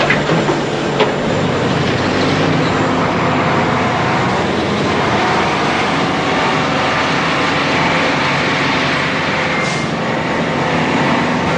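Heavy diesel dump trucks and a wheel loader running at an earthmoving site: a steady, loud engine drone with no pauses.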